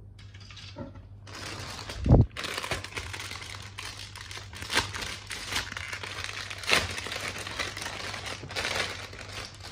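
Clear plastic bag around a model-kit runner crinkling as hands handle and open it. A sharp thump about two seconds in is the loudest moment.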